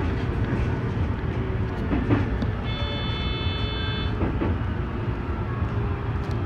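Electric train running, heard from inside the driver's cab: a steady low rumble with a few sharp clicks. About three seconds in, a high, steady electronic tone sounds for about a second and a half.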